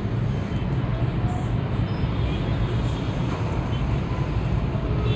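A steady low engine rumble of running heavy machinery, even throughout.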